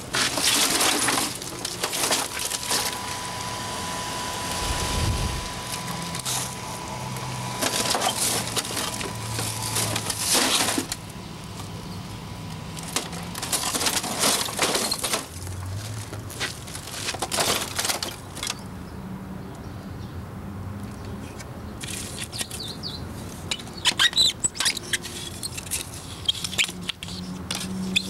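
Canon photocopier being smashed and pulled apart: its plastic casing and metal internals crack, scrape and clatter in irregular crashes, giving way to lighter crackling and clicking of parts handled near the end.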